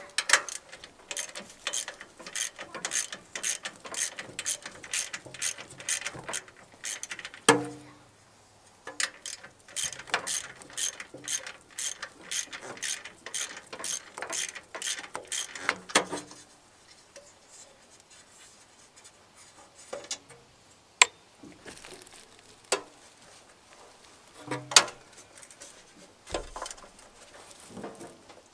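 Hand socket ratchet clicking in quick runs of about four clicks a second as bolts on the mower engine's cover are worked loose, stopping briefly partway through; later only a few scattered clicks and knocks of the tool against the engine.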